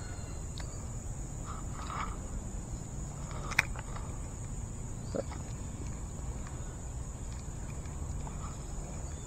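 A steady, high-pitched insect drone over a low rumble, with a single sharp click about three and a half seconds in.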